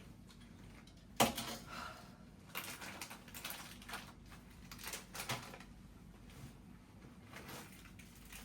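A sharp knock about a second in, then scattered light clicks and taps, as of things being handled and set down.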